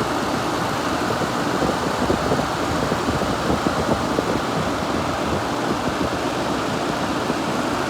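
Vintage 6,000 BTU Gibson Air Sweep room air conditioner running with its compressor on and the fan set above low, a steady rush of air and motor noise. The owner puts the fan motor's noise down to its being in dire need of lubrication.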